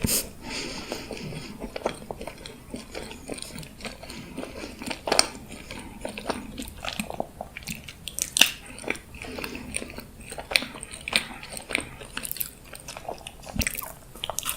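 Close-miked eating: irregular crunchy bites and chewing of a sweet dessert, with sharp crackles every second or so.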